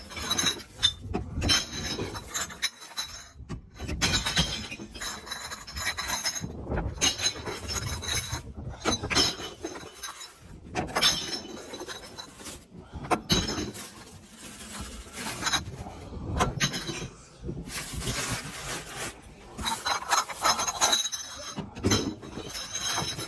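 Empty glass beer bottles dropped one after another into a bell-shaped glass recycling bank, each clinking and clattering against the glass already inside, with a bright ringing after the impacts. About eighteen seconds in comes a longer, noisier rattle.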